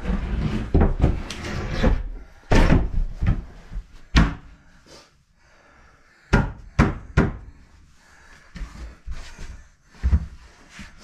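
An AdvanTech tongue-and-groove OSB subfloor panel being lowered onto the floor joists and worked into place: irregular heavy wooden thumps and knocks, with three sharp knocks in quick succession about six to seven seconds in. The panel is not settling flush at one edge.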